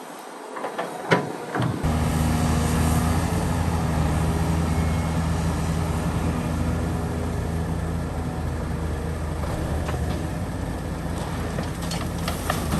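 A few knocks and clicks, then about two seconds in a heavy construction machine's diesel engine comes in suddenly and runs steadily with a low hum.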